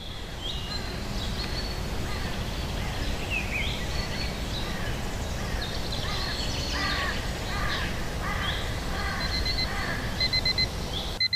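Morning birdsong over a steady outdoor background noise, with chirps and calls from several birds. Near the end an alarm clock starts beeping in quick groups of four, about one group a second.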